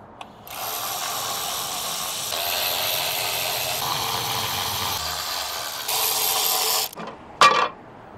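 Cordless electric ratchet whirring as it spins out the 10 mm bolts on a Honda V6 intake manifold cover, running for about six seconds and getting louder for its last second before it stops. A short sharp sound follows about half a second later.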